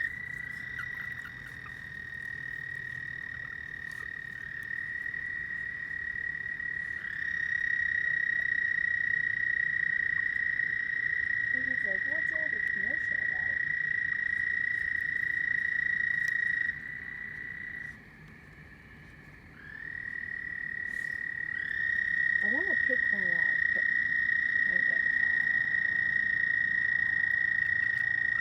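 A chorus of frogs giving long, steady, high-pitched trills that overlap, each voice starting in after another. The trilling stops for a second or two about two-thirds of the way through, then starts up again.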